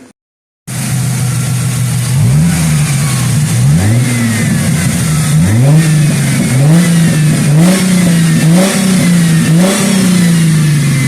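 1997 Ford Mustang's 3.8-litre V6 engine running after a coolant hose replacement, revved from idle about six times, each rev rising quickly and settling back. It is running good.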